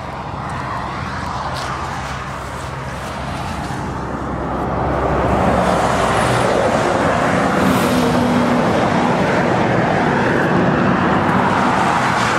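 Motor vehicle running, a steady engine hum with road noise, growing louder about four and a half seconds in and holding there.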